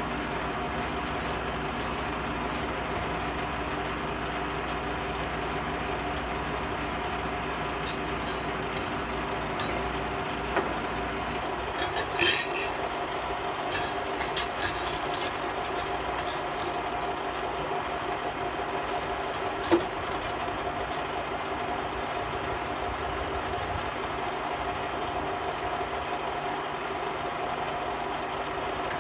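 Steady machine hum of several held tones, its deepest part fading about eleven seconds in, with a few sharp metal clinks as thin steel sheet pieces are handled on a steel workbench, the loudest about twelve seconds in and another near twenty seconds in.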